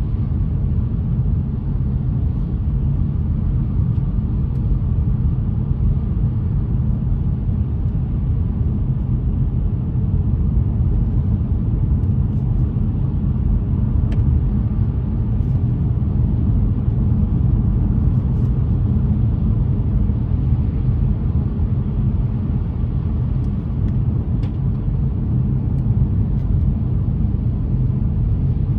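A car driving: a steady low rumble of engine and road noise that holds even throughout.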